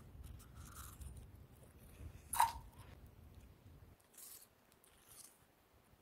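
Mouth chewing dry, soft freezer frost: a few faint crunches, with one sharp, louder crunch about two and a half seconds in.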